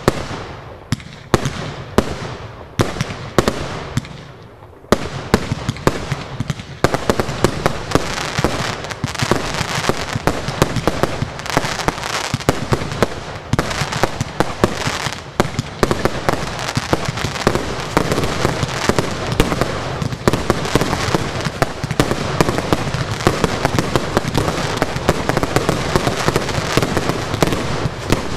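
Consumer fireworks finale firing: separate shots and bursts about once or twice a second at first, then from about five seconds in a dense, continuous barrage of rapid bangs and crackle.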